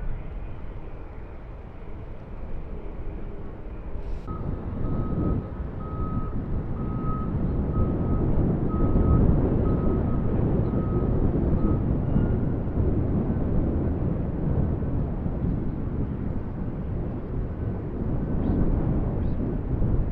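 Boeing 747-400 jet engines rumbling, swelling louder from about four seconds in, with wind buffeting the microphone. A repeated electronic beep sounds a little over once a second for several seconds.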